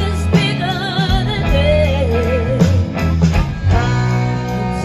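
Live soul and R&B band playing: a sung melody with vibrato over electric bass, drums and electric guitar.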